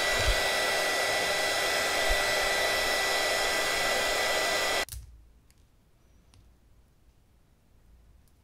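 Handheld heat gun blowing hot air, a steady rush with a high whine, warming an earphone shell to soften the glue holding its drivers; it is switched off abruptly about five seconds in. Afterwards there are only a few faint clicks from handling the small parts, with a sharper click near the end.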